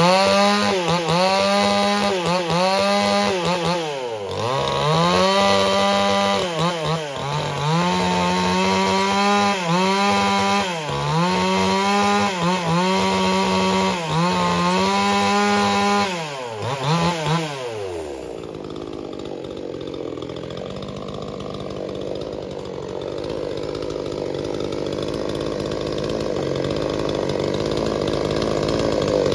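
Two-stroke chainsaw running near full throttle, its pitch dropping and recovering about every two seconds as it cuts dry wood. About two-thirds of the way through it winds down to a low idle.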